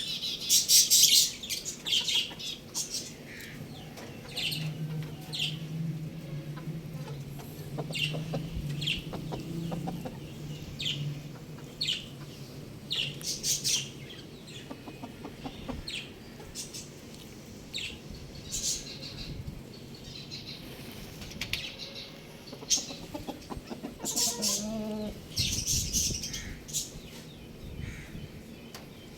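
Chickens clucking among many short, high-pitched chirps, with some wing flapping. A low steady hum runs under the first half, and a brief pitched call comes about 24 seconds in.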